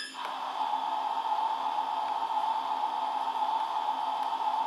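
Steady steam hiss played by the DCC sound decoder of a Jouef (Hornby) H0 SNCF 141R model steam locomotive through its small onboard speaker. It starts just after a whistle cuts off.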